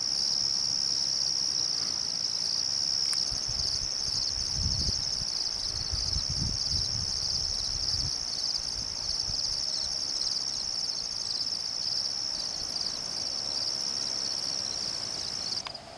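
A dense chorus of crickets: a steady, high-pitched trilling that stops abruptly near the end. A few seconds in there are low rumbles on the microphone.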